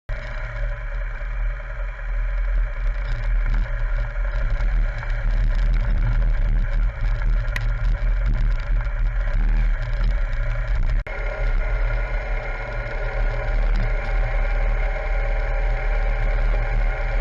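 BMW R1200GS motorcycle's boxer-twin engine running steadily while riding, with road and wind noise; the sound drops out briefly about eleven seconds in.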